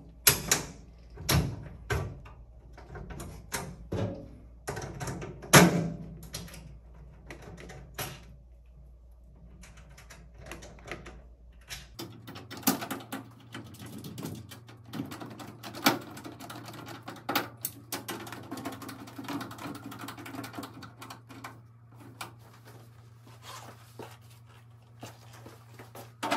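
Hand-tool work on the changer's metal bracket: irregular clicks, taps and knocks as a screw and hex nut are fitted and driven with a screwdriver, loudest in the first several seconds.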